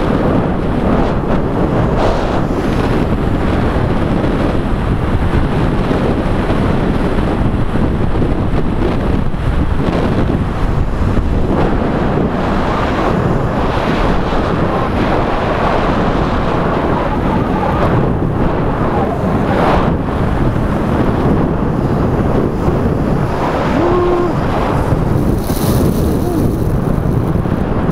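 Wind rushing over the camera microphone of a skier moving fast downhill, mixed with the hiss of skis sliding on packed snow. The noise is steady and loud, with no pause.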